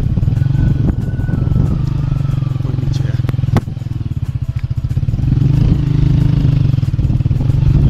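Motorcycle engine running as the bike rides along a rough dirt track. The engine note drops about three and a half seconds in, after a couple of sharp knocks, and picks up again about a second and a half later.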